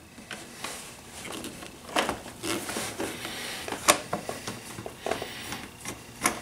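A Phillips screwdriver turning a screw out of a motorcycle's plastic radiator guard. Irregular small clicks and scrapes of the tool and handling, the sharpest about two and four seconds in.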